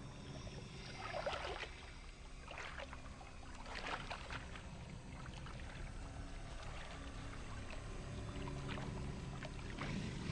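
Water splashing and sloshing in irregular short bursts over a low steady rumble, as of an animal moving through the water.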